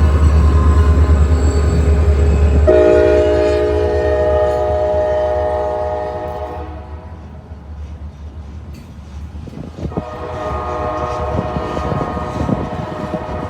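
Passing train: a heavy low rumble, then the locomotive's horn sounds a long blast of about four seconds, and a second blast starts about ten seconds in over the clatter of the wheels.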